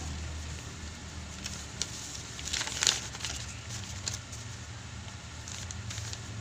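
Sheets of yellow pad paper rustling and flapping as they are handled and held up, loudest about three seconds in, over a steady low background hum.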